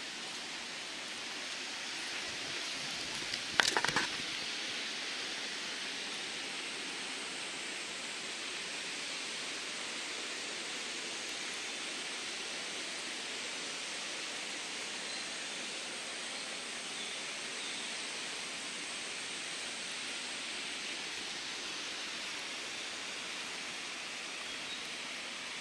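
Steady rush of a river's flowing water, with a brief cluster of sharp knocks about three and a half seconds in.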